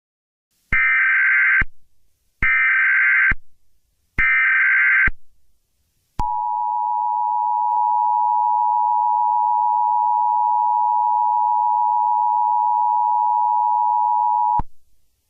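Emergency Alert System tones: three short screeching squawks of SAME header data, about a second apart, then the steady two-tone EAS attention signal held for about eight seconds, announcing a tornado warning.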